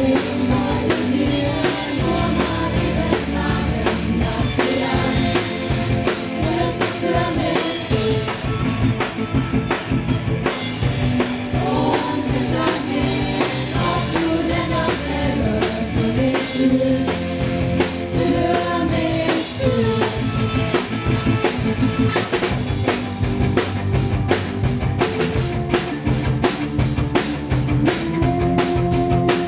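A live rock band: several female voices singing into microphones over a drum kit, electric guitar and keyboard, with a steady drum beat throughout.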